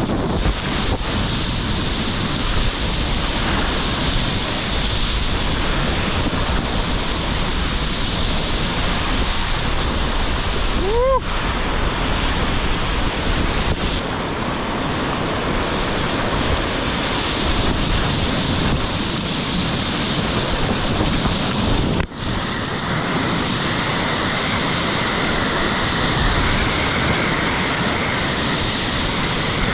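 Whitewater rapids rushing and splashing around a kayak, with wind buffeting the action camera's microphone; the sound drops out for an instant about three quarters of the way through and carries on.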